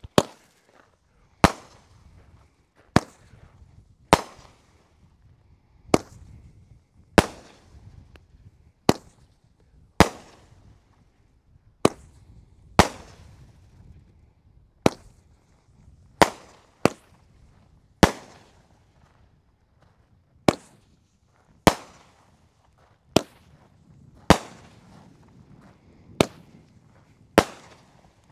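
Three-minute consumer fireworks cake firing shot after shot: a sharp bang about every one to one and a half seconds, each fading away quickly.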